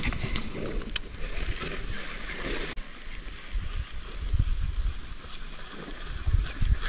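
Wind rumbling on the microphone in irregular low gusts, with two sharp clicks in the first second.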